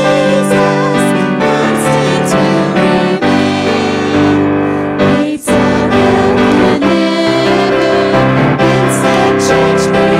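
Worship song: keyboard accompaniment with a small group of singers, with a brief break in the sound about halfway through.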